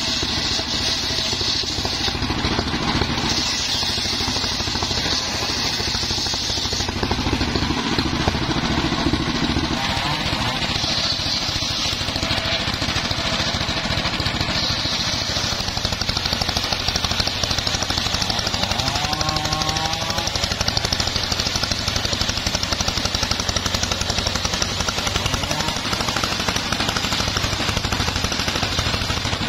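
Homemade table circular saw running steadily and ripping a teak log lengthwise, its high cutting whine coming and going every few seconds as the wood feeds through the blade.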